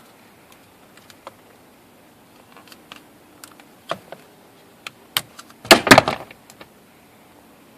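Scattered light plastic clicks, then a louder run of clicking and rattling about six seconds in, as the wiring connector is unplugged from the back of a Dodge Caravan's turn signal and windshield wiper switch.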